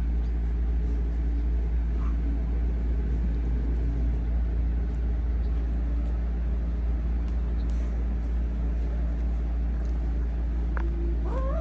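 A steady low hum, and just before the end a Sphynx cat begins a wavering meow.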